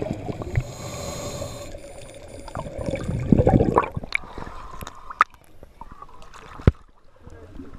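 Water gurgling around an underwater camera housing, loudest about three and a half seconds in as the camera breaks the surface, then quieter lapping of water with two sharp clicks.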